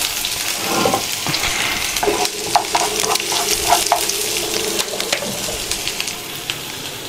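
Chopped onion sizzling as it fries in oil in a frying pan, with the clicks and taps of a utensil stirring it against the pan.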